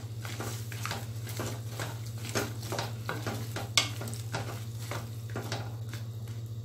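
Wooden spatula stirring cauliflower florets in turmeric-and-salt water in a metal kadai, with repeated wet scrapes and knocks against the pan and one sharper knock near the middle, over a steady low hum.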